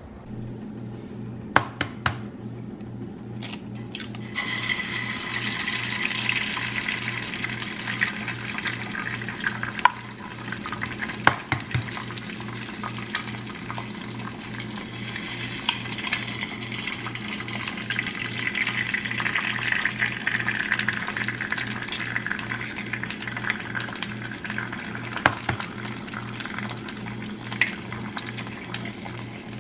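Eggs sizzling in a frying pan, a steady crackling hiss, with a few sharp clicks of a utensil or pan, over background music with a steady beat.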